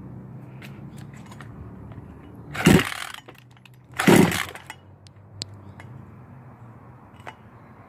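Two pulls on the recoil pull-starter of a 1/5-scale RC truck's two-stroke gas engine, each a brief whirring crank, about a second and a half apart. The engine does not catch because it is flooded.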